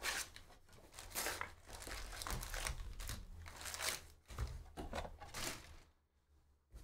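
Plastic wrap and foil-wrapped trading card packs crinkling and rustling as a hobby box is opened and its packs pulled out and stacked, in irregular bursts that stop about six seconds in.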